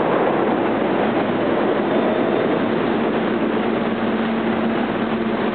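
R160A-2 subway train pulling into the station and slowing to a stop, with the steady rumble of the cars. A steady low hum sets in about two seconds in.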